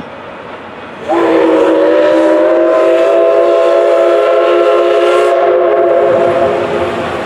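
Steam whistle of the C61 20 steam locomotive, sounded in one long blast of about five seconds that starts about a second in, rising slightly in pitch as it opens and then holding steady before fading. The locomotive and coaches rumble slowly along the track underneath.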